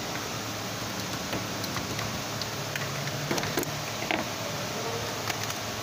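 Light clicks and taps of a hand handling a newly fitted engine drive belt on the alternator pulley, over a steady low background hum.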